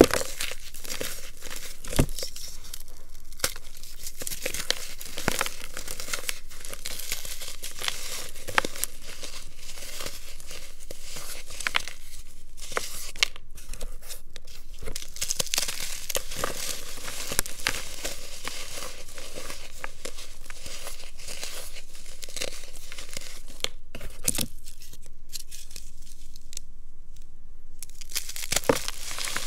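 Hands crushing and crumbling reformed blocks of baking soda, cornstarch and gym chalk. The result is a continuous dry crunching and crumbling dense with small crackles, broken by a few short pauses.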